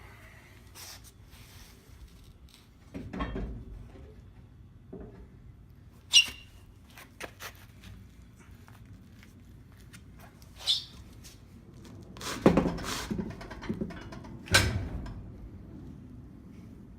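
Metal parts and tools clanking and knocking as the truck's twin I-beam front suspension is worked loose and pulled forward by hand: several dull thumps and two sharp, ringing metal clinks.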